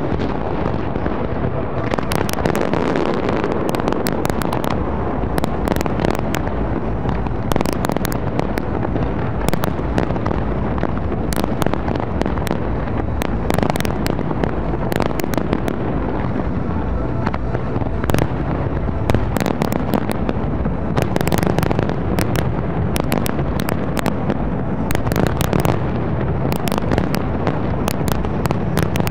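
Large professional fireworks display going off in a dense, continuous barrage: many sharp bangs and crackles a second, irregular and without a break, over a constant low din.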